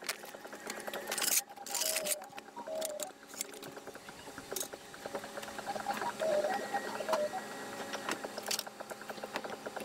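Metal clanks and rattles from a tow dolly being pulled out from under a car's wheel, loudest between one and two seconds in, then lighter rattling.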